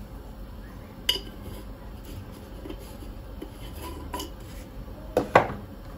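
Kitchen utensils clinking against a bowl while spices are added to a filling mixture: a sharp clink about a second in, a few soft knocks, and a louder pair of knocks near the end.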